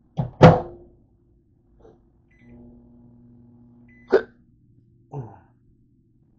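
Clunks from handling a microwave oven, then a short beep and about a second and a half of the oven's steady hum, ended by another beep and a sharp clack; one more knock about five seconds in.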